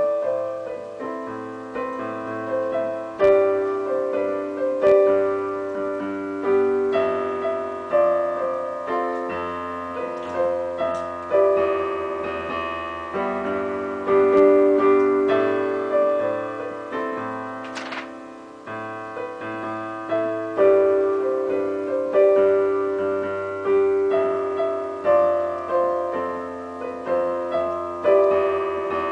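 Digital piano played solo: sustained chords under a melody, in phrases that swell with each new chord every couple of seconds and then fade.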